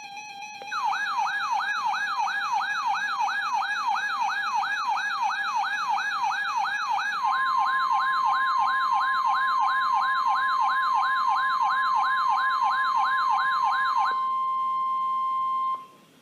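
Weather-alert tones: a brief steady tone gives way to an electronic siren-like tone sweeping upward about two and a half times a second. About seven seconds in, a steady 1050 Hz NOAA Weather Radio warning alarm tone joins it. The sweep stops near the end, and the steady tone cuts off about a second and a half later.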